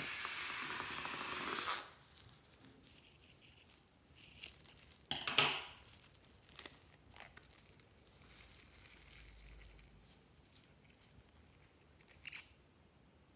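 Air hissing out of a rubber balloon just cut open with scissors, loud and even for about two seconds. Then quieter rubbing and crinkling of the limp balloon rubber as it is peeled apart, with a few sharp snaps, the loudest about five seconds in.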